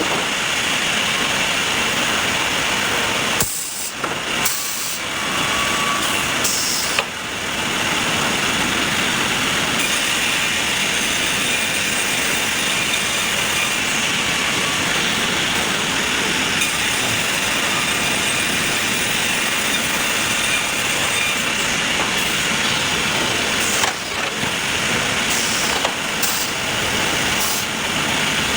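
Sawmill machinery running steadily, a dense mechanical noise with a hiss on top, broken by a few sudden changes in level.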